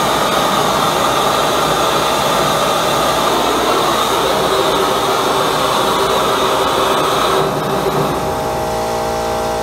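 High-velocity propane burner with compressed-air assist running, a steady, loud rushing noise. About seven and a half seconds in, the hiss thins out and a steady hum of several tones comes to the fore.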